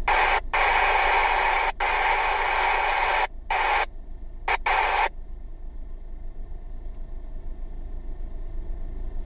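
Airband scanner radio giving several bursts of static hiss with no words in the first five seconds, broken by short gaps, as the squelch opens and closes; after that only a faint low background.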